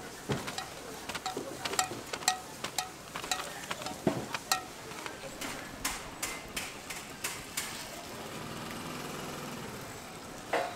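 Metal tongs clicking and knocking against a cast-iron chrysanthemum-bread mold in a quick, irregular run of sharp clicks. The clicks give way to a steady low hum about eight seconds in.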